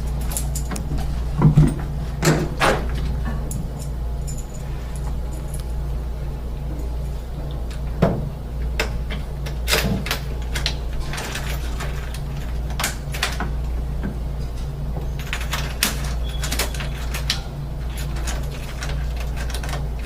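Surface-mount door lock with a newly fitted cylinder being worked open and shut: irregular clicks and clacks of the cylinder turning and the bolt sliding, over a steady low hum. The lock is being tested to check that the new cylinder is aligned to throw the bolt.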